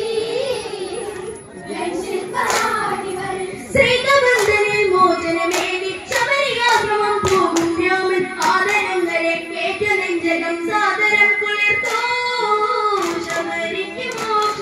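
Onam kali group singing a Malayalam folk song over a PA, led by a girl's voice on the microphone. From about four seconds in, regular hand claps keep time with the song, roughly one or two a second.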